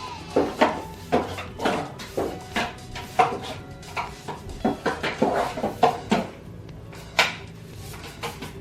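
Irregular knocks and clattering clicks, roughly two a second, as parts of a flat-pack desk are handled and fitted together during assembly.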